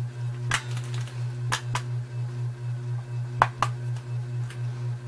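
Several short, sharp clicks and knocks, the loudest about halfway through, typical of an airsoft rifle being handled, over a steady low hum.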